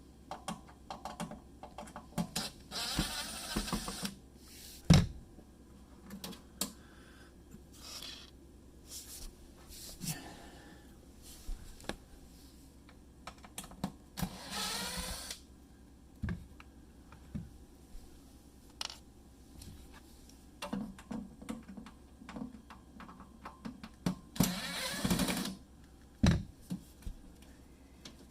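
Clicks, taps and handling noise of hands and tools working on a refrigerator panel, with three louder stretches of about a second each: near the start, midway and near the end.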